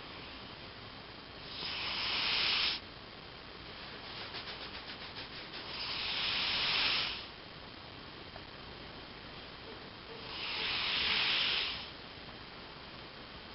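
Russian Blue cat snoring: three slow, hissing breaths about four seconds apart, the middle one led in by a short fast fluttering rattle.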